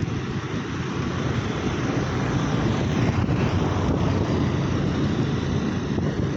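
Steady vehicle rumble with wind noise on the microphone, growing a little louder about two seconds in.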